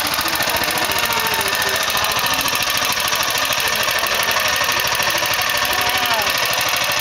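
Small gasoline engine of a bamboo train (norry) idling steadily with a rapid, even firing beat.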